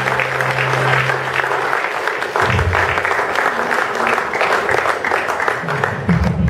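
Audience applauding. A held low note of the music dies away in the first two seconds, and music starts again near the end.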